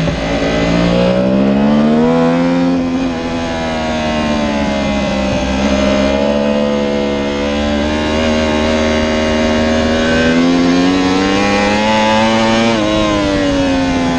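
Yamaha R1's crossplane inline-four engine heard on board at race speed, rising in pitch as it accelerates, dipping briefly about three seconds in, then climbing slowly before a sharp drop in pitch near the end. Wind rush over the bike runs underneath.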